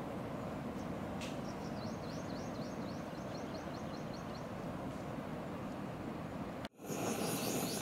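Steady hiss of distant surf breaking on a reef, with a bird's rapid run of high, quick chirps, about six a second, lasting a few seconds from about a second in. Near the end the sound cuts out abruptly and gives way to a louder hiss.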